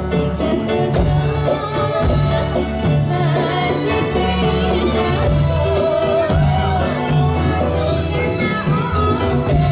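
Dolalak folk music from Central Java: a voice singing a wavering melody over a band with sustained low bass notes and a steady drum beat.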